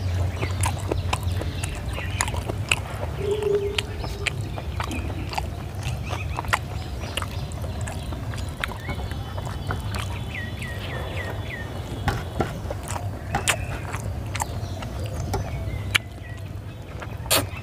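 Eating by hand from steel plates: chewing and lip smacking, with scattered sharp clicks of fingers and food against the metal plate.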